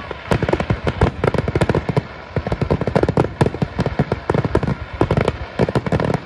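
Aerial fireworks shells bursting in rapid succession, a dense, unbroken run of sharp bangs and cracks, several a second.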